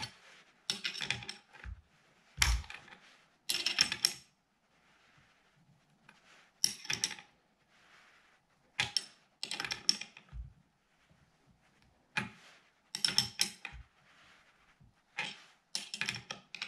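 A 15 mm spanner clinking against the steel clamp nuts of a scope mount as they are tightened, taken off and refitted a short turn at a time. It comes as about ten brief bursts of sharp metallic clicks, a second or two apart.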